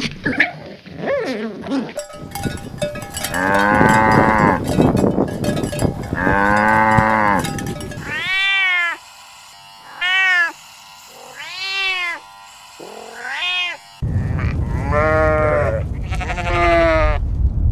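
A series of farm animal calls from different clips: two long, drawn-out calls, then four short calls that rise and fall in pitch with silence between them, then a run of further calls over background noise near the end.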